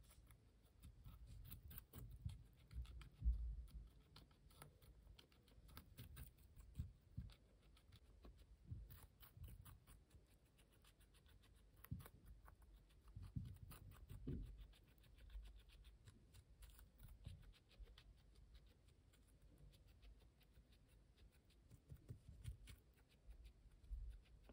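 A guinea pig chewing a raw orange vegetable chunk: faint, fast crunching clicks from its teeth, with a few soft low thumps, the loudest about three seconds in.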